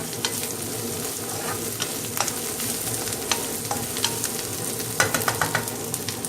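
Onion and spice masala sizzling as it fries in a pan, stirred with a spatula that scrapes and taps against the pan, with a quick run of taps about five seconds in. Chilli powder is being stirred into the frying masala.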